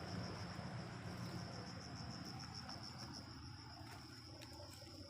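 Insects trilling steadily in a high, rapidly pulsing note, over a low, even rushing background.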